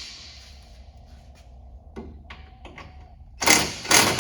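Impact wrench with a 3/4-inch socket firing in two short bursts near the end, tightening a rock slider nut. Before that come a few light clicks of the tool and socket being handled.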